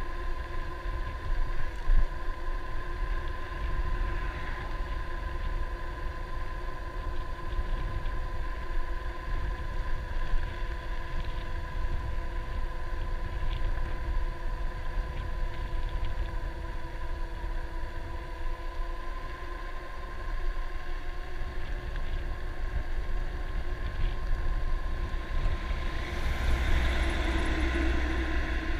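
Electric bike's motor whining steadily at cruising speed, with wind buffeting the microphone. Near the end a dump truck passes close by, a brief swell of louder road and engine noise.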